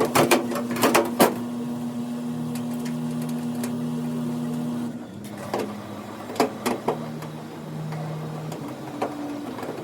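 A steady electric motor hum that steps down in pitch about five seconds in, with several sharp clicks and knocks of parts being handled, the loudest in the first second or so.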